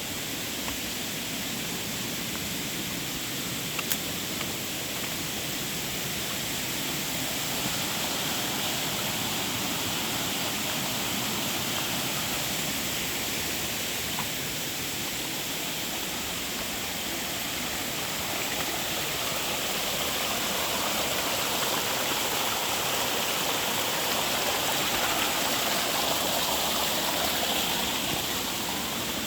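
A waterfall's steady rush of falling water, growing slightly louder in the last third, with a single brief click about four seconds in.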